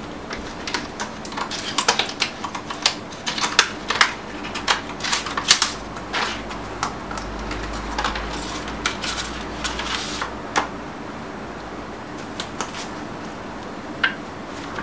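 Quick irregular clicks and taps from fingers on a smartphone and from handling its hard plastic flip-cover case and packaging on a table. The clicks come thick for most of the time, then thin out to a few near the end.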